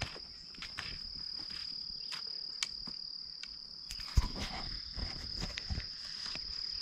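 Crickets trilling steadily in one high, unbroken tone, with scattered light clicks of footsteps and cane taps. About two-thirds of the way in come a sharp knock and low bumps of a hand handling and covering the camera.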